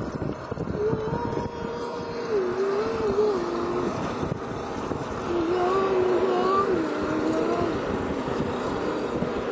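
A man singing or humming a tune without clear words, in two wavering phrases, over wind rumble on the microphone.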